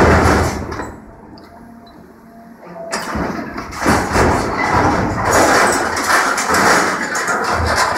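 Hydraulic demolition shear on an excavator crushing and tearing metal tanks and steel framing, with loud grinding and crunching of metal. It eases off about a second in, leaving a faint hum, then the loud crunching starts again around three seconds in.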